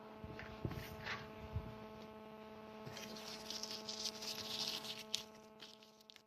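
A steady electrical hum with a few soft knocks and a stretch of rustling noise over it; the hum cuts off just after the end.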